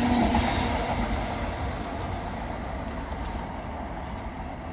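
Class 360 Siemens Desiro electric multiple unit running along the line, its wheel-on-rail rumble fading steadily as the train draws away. A steady hum stops about half a second in.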